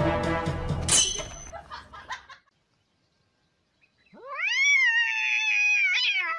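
Music fades out over the first two seconds, with a sharp hit about a second in. After a short silence, a cat gives one long, drawn-out meow that rises steeply in pitch and holds high.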